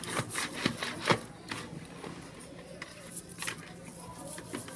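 A loose bike chain being scrubbed with a barbecue brush in a plastic container of chain cleaner: irregular clacks of the chain links and brush against the plastic, with scraping of the bristles between them.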